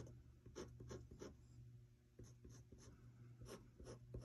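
Faint scratching of a pen drawing on card in short strokes, pausing briefly about halfway through.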